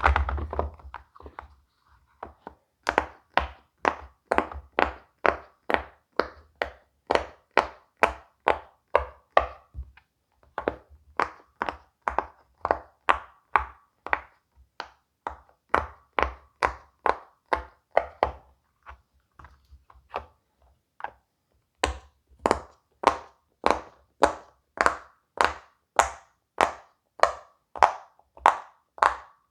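Silicone pop-it fidget toy bubbles pressed one after another, giving a steady run of soft pops about two a second, with a short pause about two-thirds of the way through.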